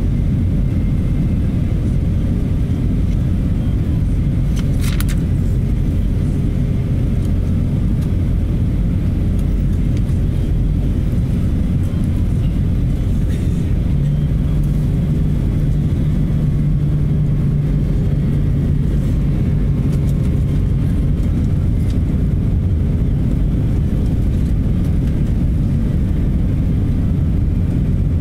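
Airbus A320 cabin noise in flight: the steady low rumble of the engines and the air rushing past the fuselage. About halfway through a low hum swells in over the rumble and fades out a few seconds later.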